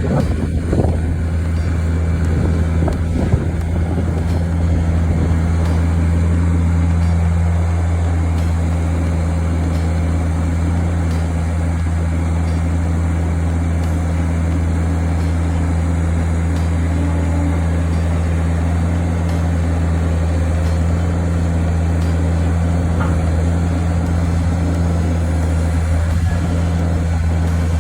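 A steady low hum from a running motor or engine, unchanging in pitch, with a few faint knocks near the start.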